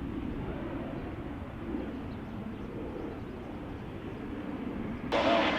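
Steady rumble of distant jet airliner engines. Near the end it jumps abruptly to a louder, fuller jet engine sound.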